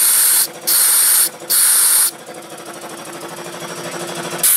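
Compressed air hissing out of the air hose in three short blasts, each about half a second, over the steady running of an old Sears air compressor; another blast begins near the end.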